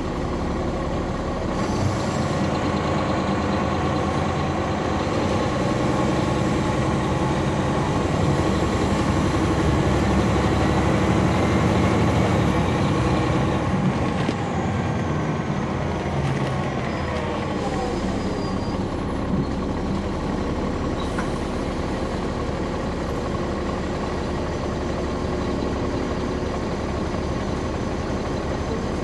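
Caterpillar C13 diesel engine and ZF Ecomat 6HP594C automatic transmission of a 2009 NABI 40-SFW transit bus, heard from the back of the bus. The engine and transmission whine build as the bus pulls away, loudest about twelve seconds in, then the whine glides down as it eases off and settles into a steadier run.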